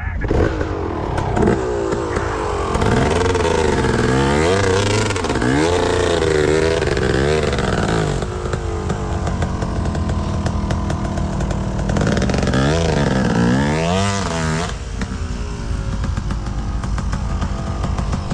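ATV engine revved hard in repeated surges, its pitch swinging up and down, as the quad is driven on the throttle to get out of mud it is stuck in. Two bouts of revving, the second about twelve seconds in, with steadier lower running between them.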